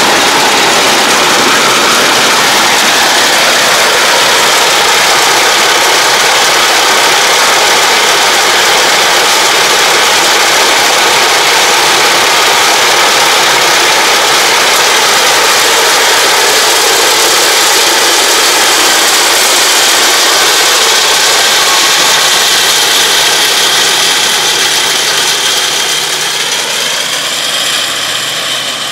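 Yanmar tractor's diesel engine running steadily under load with a Takakita RB-950W roll baler working behind it, picking up and baling rice straw. The noise fades over the last few seconds as the rig moves away.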